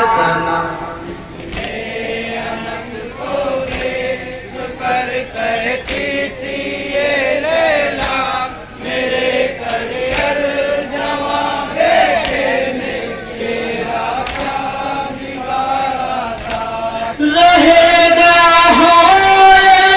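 Men chanting a noha, a Shia mourning lament, in chorus over a loudspeaker system. Near the end the lead reciters' amplified voices come in much louder.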